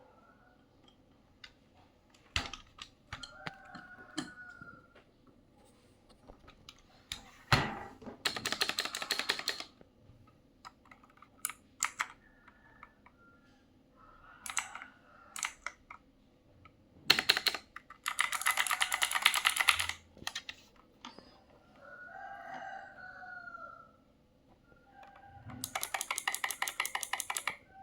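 Zifriend AG98 mechanical keyboard with clicky blue switches being typed on: three fast runs of crisp key clicks, with single key presses in between.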